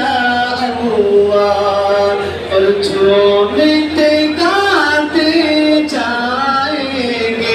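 An Urdu naat sung unaccompanied by a single voice, holding long notes that bend up and down from phrase to phrase.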